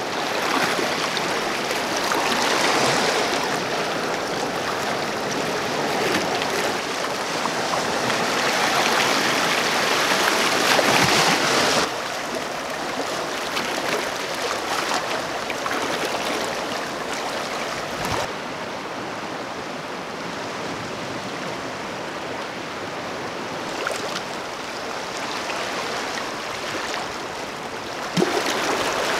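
Sea water washing over shoreline rocks: a steady rushing and gurgling that drops in level about twelve seconds in.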